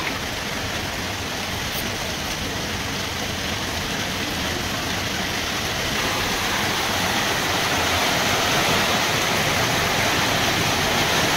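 Heavy monsoon rain pouring steadily onto the yard, a dense even hiss that grows a little louder about halfway through.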